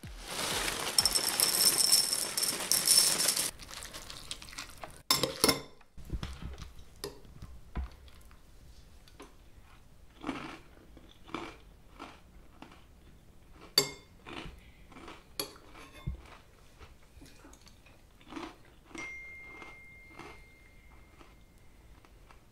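Breakfast cereal poured from a plastic bag into a ceramic bowl, a loud rattling pour lasting about three and a half seconds. A few knocks follow, then a spoon clinks against the bowl at scattered moments as she eats.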